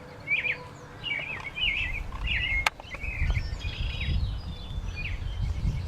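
Wild birds singing, with short warbling chirps repeated again and again. A low rumble runs under them from about two seconds in, with a single sharp click near the middle.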